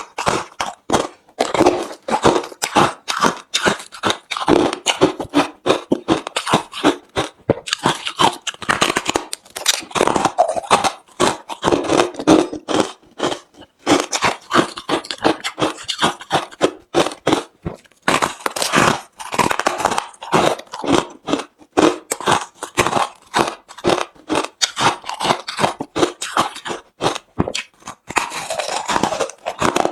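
Hard, refrozen crushed ice being bitten and chewed: a dense, continuous run of crunchy cracks and crackles, with a few brief lulls between bites.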